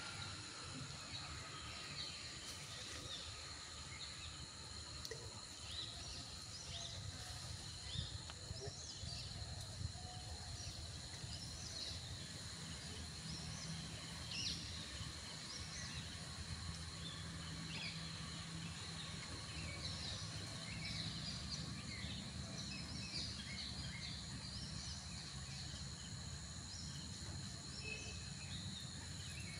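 Riverside ambience: many short bird chirps scattered throughout, over a steady low rumble and a thin steady high tone.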